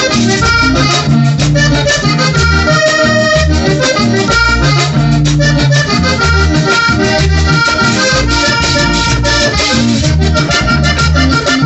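Accordion-led instrumental passage of a live vallenato band between sung verses, the accordion playing over pulsing bass notes and steady rhythmic percussion.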